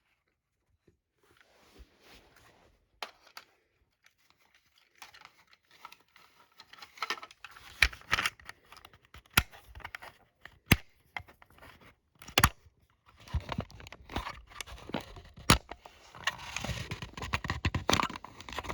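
Handling of a plastic smoke alarm while working its battery out: scattered sharp clicks and knocks with rustling and scraping. It is near quiet for the first few seconds, and the scraping and rustling grow busier toward the end.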